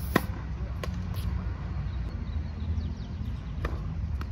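Tennis rally: a sharp pop of a racket striking the ball about a quarter second in, then a few fainter pops of the ball bouncing and being hit from across the court, over a steady low rumble.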